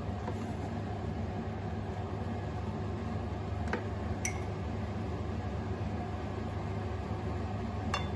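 Steady low background hum with a few light clicks and clinks, one ringing briefly, like utensils touching a mixing bowl.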